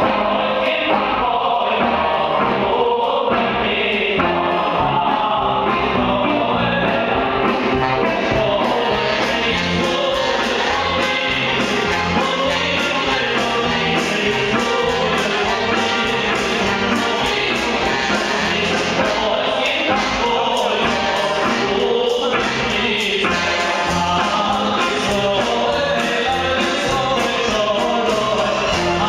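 Male choir singing into microphones over a live band with drum kit, electric bass and a brass section of trombone and trumpets.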